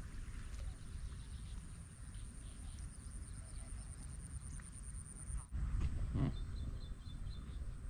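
Outdoor ambience at a pond, dominated by wind rumbling on the microphone, with a thin steady high tone over it. The sound breaks off abruptly about five and a half seconds in, and a brief thump follows soon after.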